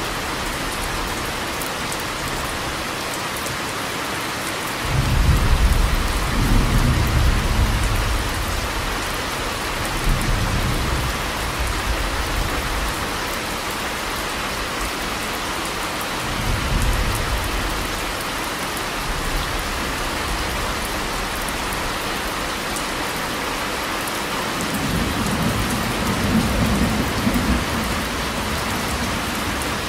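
Steady rain falling, with thunder rumbling four times over it. The loudest and longest rumble comes about five seconds in; fainter ones follow, and another swells near the end.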